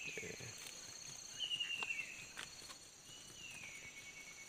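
Faint forest insects trilling steadily at a high pitch, with a buzzy call that slides down in pitch and repeats every second or two, and a few light clicks.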